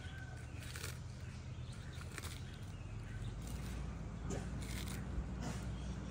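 Sulcata tortoise biting and tearing into a head of bok choy: several separate crisp crunches and snaps of the leaves and stalk, over a steady low hum.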